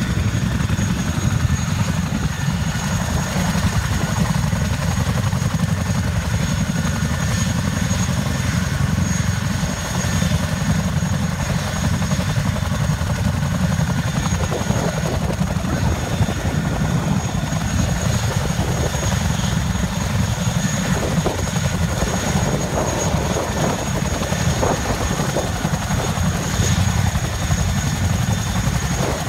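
Boeing CH-47 Chinook tandem-rotor helicopter running on the ground: a loud, steady deep rotor rumble with a thin, steady high whine from its turbine engines.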